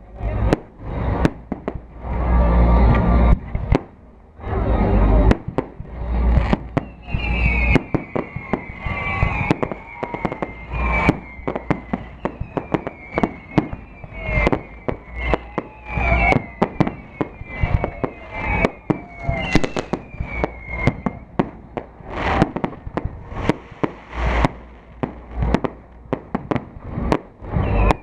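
Fireworks going off in a rapid barrage of bangs, with deep booms in the first few seconds. From about a quarter of the way in to about three-quarters through, repeated short whistles each fall in pitch among the bangs.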